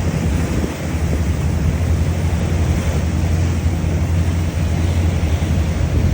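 Steady loud rushing noise with a deep rumble, typical of wind buffeting the microphone, cutting off abruptly at the end.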